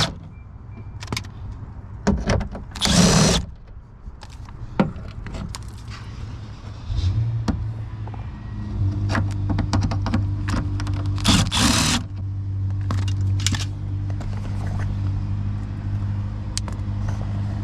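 Tool work on a truck door removing the 10 mm fasteners of a door speaker: two short loud bursts near the start, then scattered clicks and knocks. A steady low hum sets in about seven seconds in and carries on.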